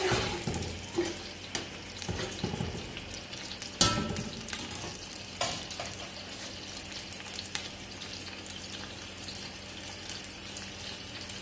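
Sliced onions sizzling in ghee in a large aluminium pot over a high flame, being softened without browning. In the first few seconds a metal ladle stirs and knocks against the pot, the loudest knock about four seconds in; after that the sizzling goes on steadily.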